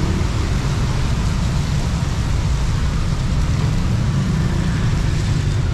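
Steady road traffic on a wet street: a continuous low rumble of passing vehicles with an even hiss over it.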